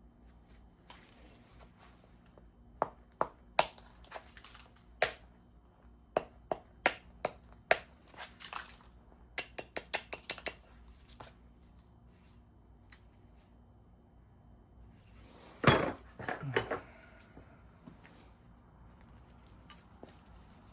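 Flintknapping: a hard tool striking the edge of a stone core or preform, giving sharp ringing clicks, a dozen or so spaced strikes and then a quick run of taps. Near the end comes one louder, rougher rattle lasting about a second. The work is aimed at removing a stubborn hinge fracture.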